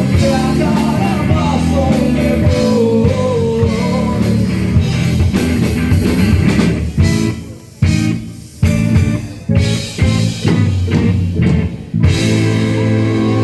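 Rock band playing with guitar and drums. A guitar melody runs over the band at first. From about 7 s the band plays a series of short stop-start hits with brief gaps, then comes back with a full, held sound near the end.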